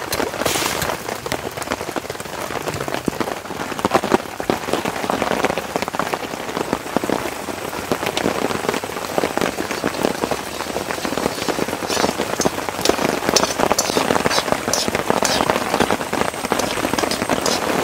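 Rain falling steadily on the tent and tarp, a dense hiss full of small drop ticks. In the last few seconds a metal spoon scrapes and clicks against an iron kadai as onions are stirred.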